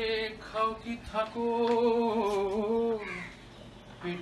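A man singing a tune to himself: a few short notes, then one long note that wavers in pitch.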